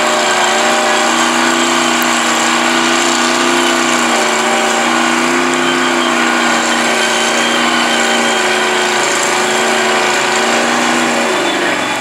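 Pickup truck engine held at high revs while the truck sits in a mud hole, its pitch stepping up slightly a couple of times and dropping near the end.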